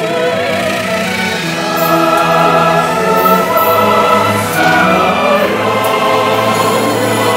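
Music with singing voices, the held notes wavering with vibrato.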